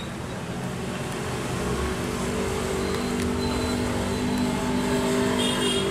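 A motor vehicle engine running close by: a steady low hum of several tones that grows louder after about a second and a half, then stops abruptly near the end.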